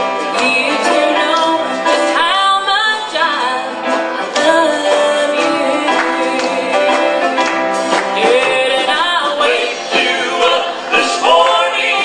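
Gospel song with voices singing together over instrumental accompaniment.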